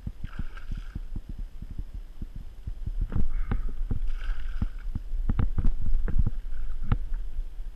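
Handling noise on a body-worn action camera: a steady low rumble with irregular knocks and thumps, heavier from about three seconds in, as the angler moves about with a landing net.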